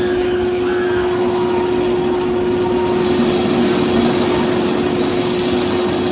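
Roller coaster lift mechanism running as a loaded train is hauled up a steep lift hill: a steady mechanical hum with one constant tone.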